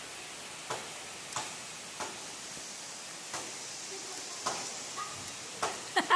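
Steady hiss of monsoon rain, with scattered drips ticking irregularly about once a second.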